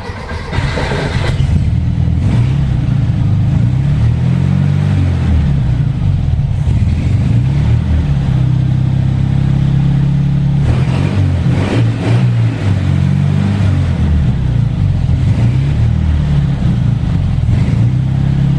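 A 1963 Volkswagen Beetle's air-cooled flat-four engine cranks on the starter, catches within about a second and runs, blipped up and down a few times so its pitch rises and falls.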